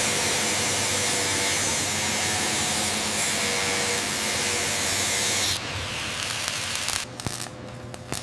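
Angle grinder grinding a steel hull plate: a steady, loud hissing whine that drops away about five and a half seconds in, followed by quieter crackling near the end.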